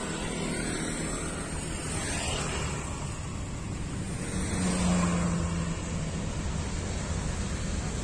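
Steady jet engine roar from a Boeing 777-300ER's GE90 engines as the airliner rolls along the runway, swelling slightly about halfway through.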